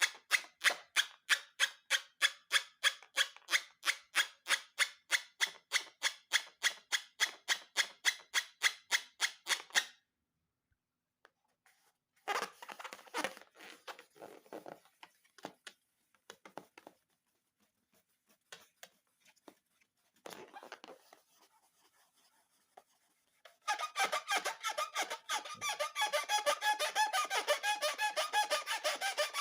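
Rubber balloons squeaking as they are rubbed and squeezed by hand: first a fast even run of squeaks about four a second, then scattered squeaks and rustles, then continuous wavering squeaking from about six seconds before the end.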